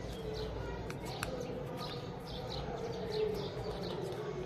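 Small birds chirping over and over in short falling notes, with a low wavering tone underneath. A couple of soft clicks of paper being folded come about a second in.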